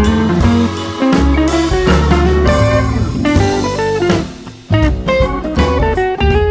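Background music: blues-rock with electric guitar, bass and drums, briefly dropping away about four and a half seconds in.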